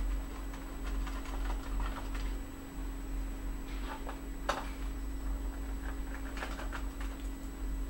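Scattered small clicks and scrapes of a screwdriver taking the keyboard screws out of a Samsung R540 laptop's plastic bottom case, over a steady low electrical hum.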